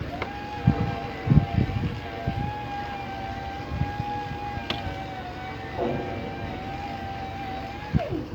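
A small electric motor, such as a power tool's, runs up at once to a steady high whine with a few knocks beneath it. About eight seconds in it is switched off and the whine drops quickly in pitch as it winds down.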